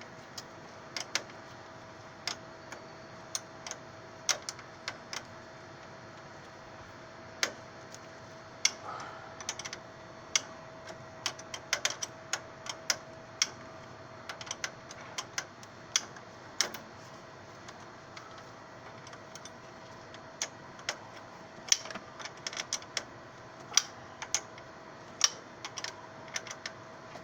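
Irregular sharp clicks and taps of hand tools working on an aircraft brake line, over a steady background hum.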